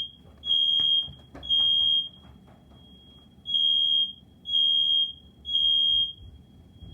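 Smoke alarm sounding its three-beep evacuation pattern: three loud, high beeps about half a second each, a pause of about a second and a half, then three more. A fainter tone at the same pitch carries through the pauses. It was set off by smoke from grilled cheese cooking.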